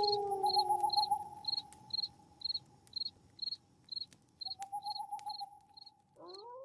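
Cricket chirping steadily at night, short high chirps about twice a second. A short rising electronic tone sounds near the end.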